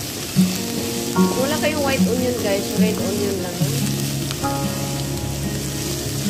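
Diced onions and green chilies sizzling in a nonstick frying pan as a wooden spatula stirs them. Background music plays over it, with notes changing on a steady beat about every 0.8 s and a gliding melody in the first half.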